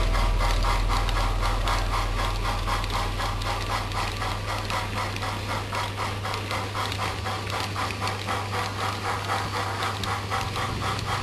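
Model steam locomotive's sound decoder chuffing in an even rhythm, several chuffs a second, over a low steady hum.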